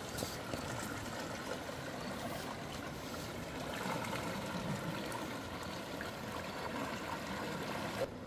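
Steady rushing of a large river's flowing water.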